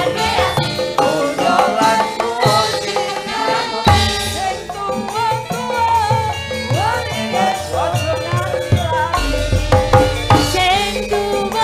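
Javanese gamelan with drums accompanying a song sung through microphones, with a woman's and a man's voice carrying the wavering melody. A deep bass note comes in about nine seconds in.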